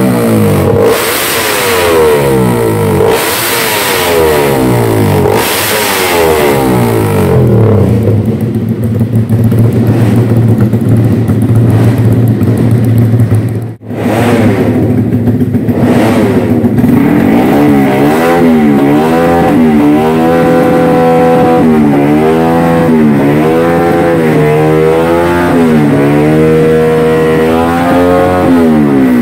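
Yamaha-based racing underbone motorcycle engines free-revving on a paddock stand, the throttle blipped by hand about once a second, then held at high revs for several seconds. About halfway through, the sound cuts to another bike revved in quick repeated blips.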